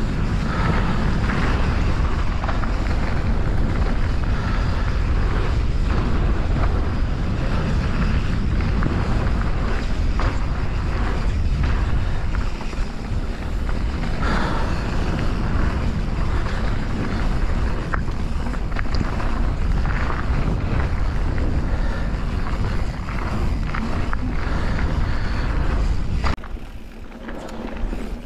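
Mountain bike rolling fast down a dirt trail: wind rumbling on the microphone, tyres crunching over the packed dirt and the bike rattling over bumps. About two seconds before the end the wind rumble drops away and it grows quieter.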